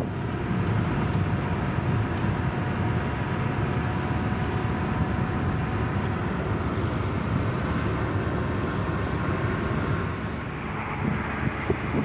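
Steady road rumble and rush of a moving vehicle, with a faint steady whine that fades out about halfway through. The level drops slightly near the end.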